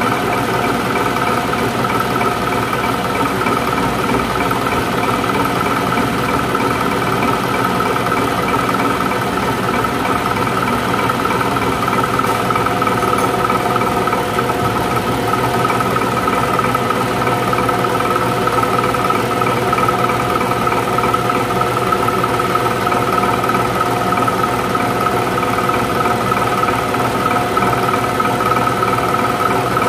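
Bosch diesel injection pump test bench running steadily, driving a Mitsubishi 6D16 in-line injection pump: a constant high whine over a dense mechanical hum.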